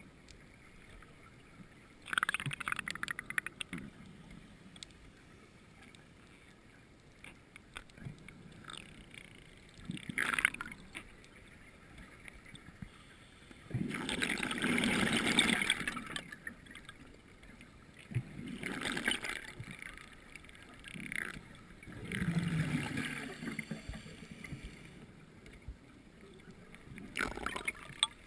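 Scuba regulator exhalations underwater: several bursts of bubbling a few seconds apart, the longest about two seconds near the middle, with a low steady background between them.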